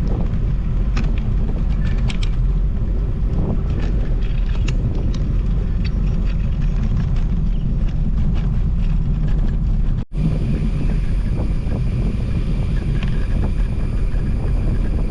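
Wind buffeting the microphone of a camera riding along on a bicycle, a steady low rumble with scattered small rattling clicks. The sound drops out for an instant about ten seconds in.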